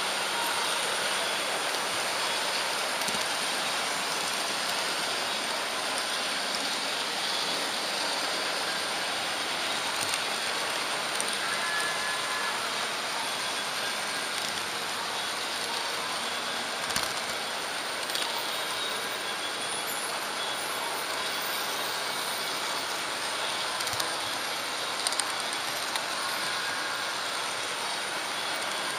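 Märklin HO-scale model train running along its track: a steady rolling rush, with a few short sharp clicks in the second half.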